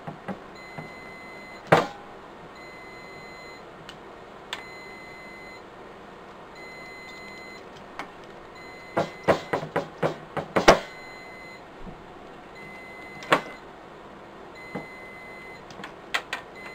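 Riello DVD 2200 UPS alarm beeping at an even pace, the warning of its worn-out batteries, under sharp clicks and clunks of battery cable connectors and batteries being handled, with a burst of rapid clicks near the middle.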